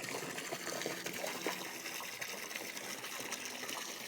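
Backyard waterfall running: a steady gush of falling water.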